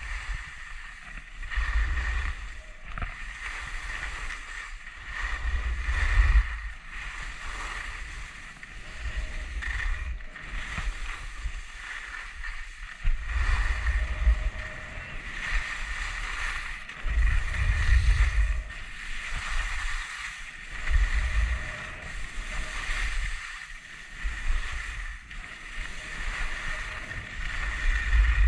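Skis hissing and scraping over packed snow on a fast downhill run. Wind buffets the camera's microphone with low rumbling gusts, loudest several times.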